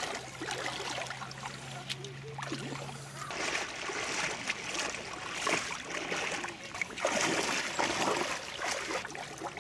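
Water splashing and lapping around a swimming Yorkshire terrier, in irregular bursts that get livelier after about three seconds.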